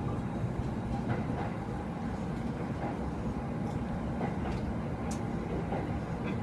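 Steady rumble of a JR East commuter train running, heard from inside the passenger car as it pulls out through the station, with a single sharp click about five seconds in.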